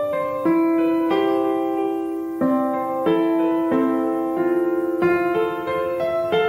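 Background piano music: slow, sustained chords, with a new chord or note struck about every second.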